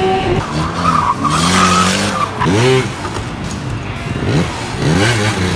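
A motor vehicle engine revving hard, its pitch sweeping up and down several times, with tyre squeal in the first couple of seconds.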